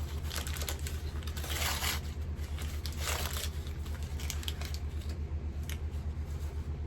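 A small package being opened by hand: paper or plastic wrapping rustling and tearing in two longer bursts, about a second and a half in and again about three seconds in, with small clicks and handling noises between. A steady low hum runs underneath.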